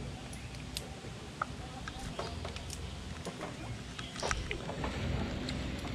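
Low rumbling noise on the microphone with scattered light clicks and knocks, the sharpest about four seconds in.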